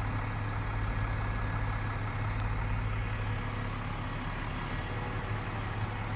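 City bus engine running close by: a steady low drone over street noise.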